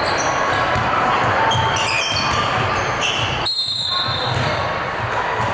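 Basketball dribbling on a gym floor during a game, with repeated low bounces and a few short high squeaks, the clearest about three and a half seconds in.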